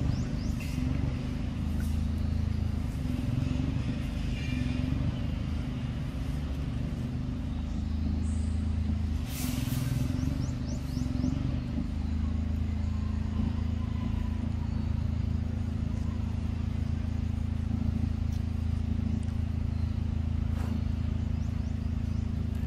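A motor running steadily, a low hum throughout, with one brief sharp noise about ten seconds in.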